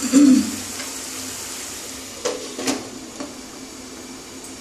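Grated bottle gourd and prawns sizzling in a kadai, with a steady frying hiss. A knock sounds at the start, then a glass lid is set on the pan with two clinks a little after two seconds in and a lighter tap soon after.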